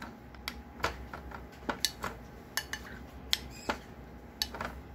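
Plastic spoon knocking against a plate and muskmelon pieces dropping into a mixer jar: a string of irregular light clicks and taps.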